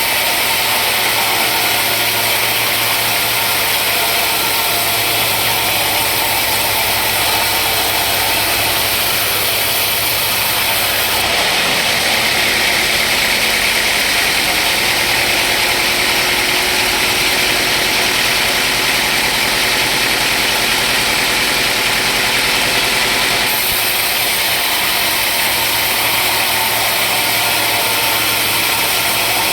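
Sawmill machinery running steadily with a continuous loud mechanical drone. Its tone shifts about a third of the way through and again near two-thirds, while the loudness stays even.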